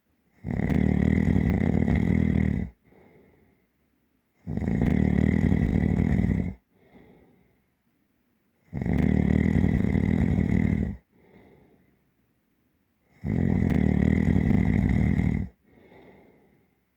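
Deep, heavy snoring: four long snores of about two seconds each, one roughly every four seconds, each followed by a short, much quieter breath out.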